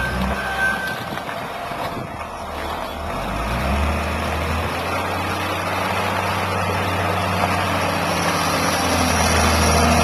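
Wheel loader's diesel engine running as it carries a heavy boulder on its forks, growing louder through the second half. A reversing beeper sounds once just after the start.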